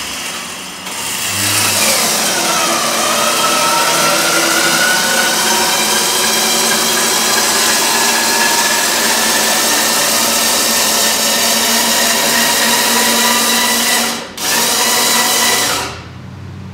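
The motorized drive of a homemade scissor motorcycle lift running under load as it raises a dirt bike. Its pitch drops about two seconds in and then slowly climbs. It stops briefly near the end, runs again for about a second and a half, then cuts off.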